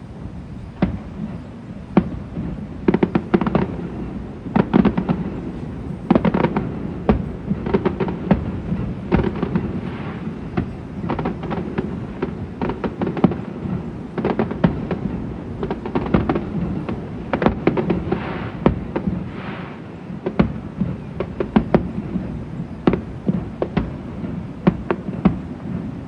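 Fireworks going off: an irregular run of sharp bangs and crackling pops, several a second at times, over a steady low rumble.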